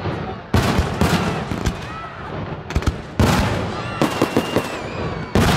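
Fireworks display: aerial shells bursting with loud bangs about half a second in, just after three seconds and near the end, each fading away, with quick runs of short crackling reports between them.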